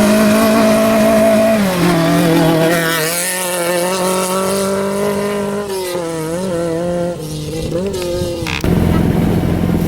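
Rally car engine running at held revs, its pitch dropping a step a couple of seconds in, then wavering briefly with small blips. Near the end it gives way abruptly to a rougher, louder engine sound.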